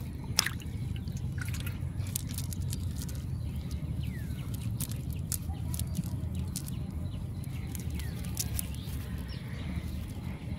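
A small fish dropped into a steel plate, landing with a sharp tap about half a second in, followed by scattered light taps and clicks over a steady low rumble.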